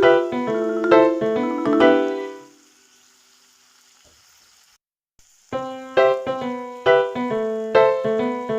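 Background piano music. It dies away about two and a half seconds in, leaves a pause of about three seconds, and the piano starts again about five and a half seconds in.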